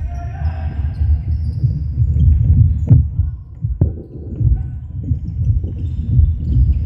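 Netball players' feet running and stopping on a wooden sports-hall floor, a dense low thudding throughout, with two sharp knocks about three and four seconds in and a shout from a player near the start.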